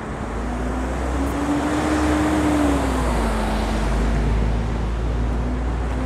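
Street traffic: a motor vehicle passing close by, the tyre and engine noise swelling toward the middle, its engine hum dropping in pitch about three seconds in as it goes past, over a low rumble.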